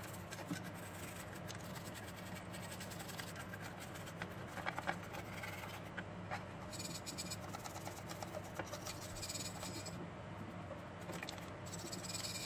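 Toothbrush bristles scrubbing a TV circuit board wet with cleaning liquid: a dense scratchy brushing that comes in short spells, with a few light taps from handling the board, over a steady low hum.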